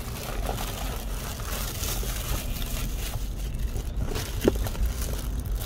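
A thin plastic carrier bag rustles and crinkles as cardboard takeaway boxes are handled inside it, over a steady low rumble. One short knock comes about four and a half seconds in.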